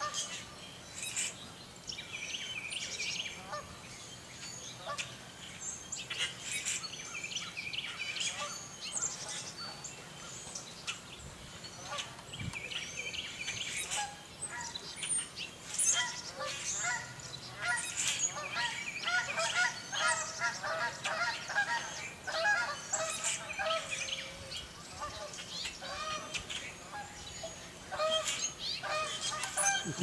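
Canada geese honking in repeated calls that build up from about halfway through, over the chirping of small songbirds.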